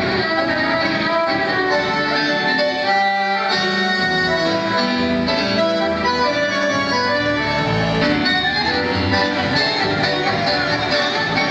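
Argentine tango music, with the bandoneon carrying sustained, reedy notes over a steady ensemble.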